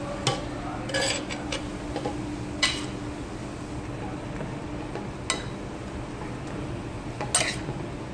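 Metal spoon clinking and scraping against a stainless steel frying pan as marinated beef and vegetables are stirred in it: a handful of scattered sharp clinks, over a steady low hum and hiss.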